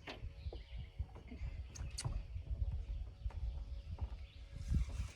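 Low rumbling with scattered clicks and knocks: handling noise of fishing gear in a small boat.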